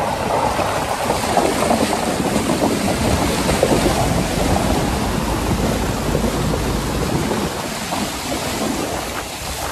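Water splashing and spraying off the front tyre of a Mahindra TUV300 as it wades through a shallow stream, with the engine running under the rush. The splashing eases off near the end.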